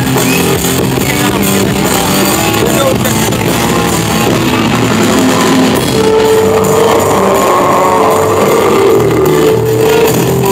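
Rock band playing live, loud, with electric guitar and a drum kit. About six seconds in a long held note comes in over the band.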